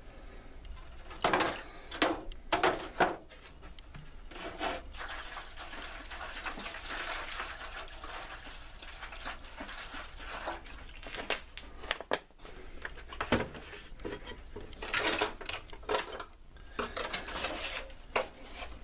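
Apple cider vinegar pouring from a bottle into a pan to cover a rusted steel draw knife for a rust-removal soak. There is a steady pouring hiss in the middle, with clanks and clatters of the blade and pan near the start and again toward the end.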